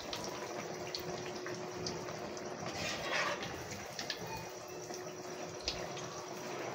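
A pua of batter deep-frying in hot oil in a kadhai: steady sizzling, with a few sharp clicks of a metal slotted spoon against the pan.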